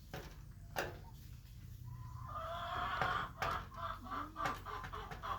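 Chickens clucking: a quiet start, then from about two seconds in a busy run of short clucking calls several times a second, with a couple of sharp knocks among them.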